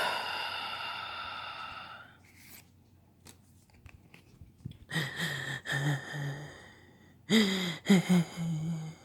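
A person's wordless vocal sounds: a long breathy exhale lasting about two seconds, then, about five seconds in and again near the end, short runs of voiced sounds broken into quick pulses.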